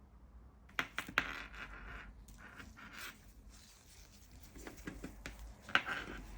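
Hands handling a mechanical keyboard and its packaging: a few sharp clicks, the loudest about a second in and near the end, over scratching and rustling.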